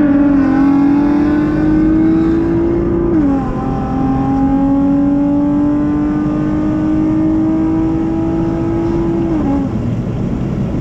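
Honda J35 V6 engine pulling a car under light acceleration, its exhaust tone slowly rising in pitch, dropping sharply at an upshift about three seconds in, climbing again and dropping at another upshift near the end.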